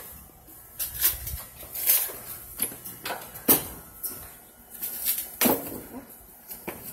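Plastic wrapping crinkling and rustling as a package wrapped in layers of plastic and tape is handled, in short sharp rustles roughly once a second.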